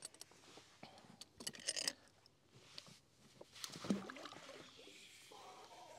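Faint scattered knocks, scrapes and rustles of gear being handled in a kayak as the anchor is let down, with short clattering bunches about two seconds in and again about four seconds in.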